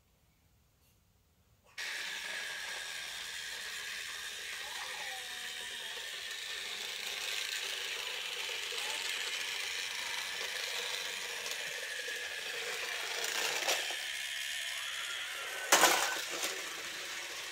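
Battery-powered TrackMaster Thomas toy engine running along plastic track, its small motor and gears whirring with a steady clicking rattle that starts about two seconds in. Near the end there is a sharp, loud clack as the engine runs onto the zip-line gondola.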